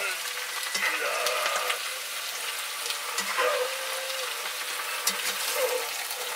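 Fried potatoes with mushrooms and chopped tomatoes sizzling in a frying pan as they are stirred, with small clicks and scrapes of the metal utensil against the pan.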